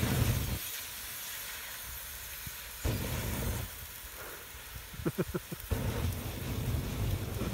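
Something in a campfire flaring up with a sudden whoosh, then a steady loud hiss as it sprays out a shower of sparks, surging again about three seconds in.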